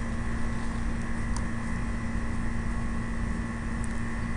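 A steady machine hum with an even hiss under it, and one faint click a little over a second in.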